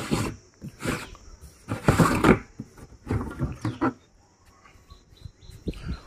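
Screw-on plastic water-tank lid being twisted off: a few short grinding scrapes of plastic on plastic, then quieter.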